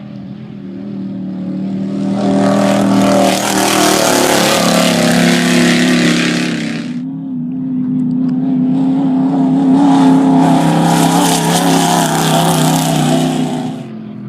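Two off-road race vehicles pass one after the other at speed, their engines running hard with a broad rush of noise. The first is loudest about three to six seconds in, and the second from about nine seconds until it fades near the end.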